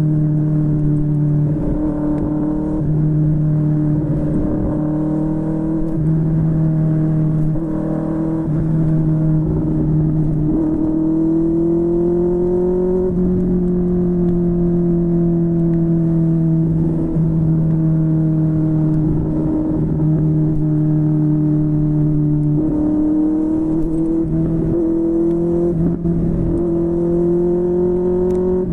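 QJMotor SRK600 inline-four motorcycle engine through a Yoshimura R11 exhaust, running steadily on the road, its pitch stepping and gliding up and down several times as the rider changes gear and throttle.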